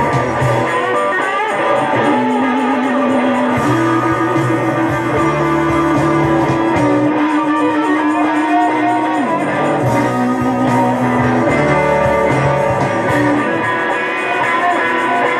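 Guitar-driven rock music with electric guitar over a steady bass line, playing at an even level.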